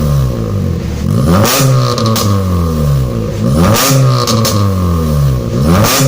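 Honda Brio's four-cylinder engine being revved through an aftermarket downpipe, resonator and racing muffler. The pitch rises and falls again about every two seconds, with sharp cracks in the exhaust note near each change.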